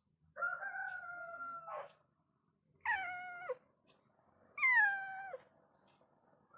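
Cat meowing three times: a long drawn-out meow, then two shorter ones, the last the loudest, each dropping in pitch at the end.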